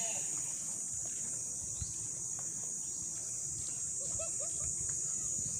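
A steady, high-pitched insect chorus drones without a break, with a low rumble underneath.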